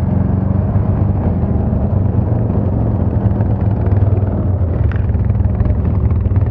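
ATV engine running steadily under way, its low drone holding an even pitch with small shifts in throttle.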